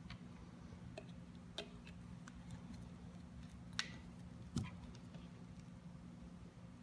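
Light clicks and knocks of plastic mixing cups, a small bottle and its cap being handled while automotive paint is measured and mixed, with the loudest knock about halfway through. A steady low hum runs underneath.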